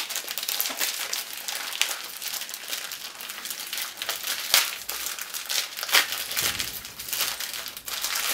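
A white plastic mailer pouch crinkling as it is pulled and torn open by hand: continuous crackling, with a few sharper snaps of the plastic.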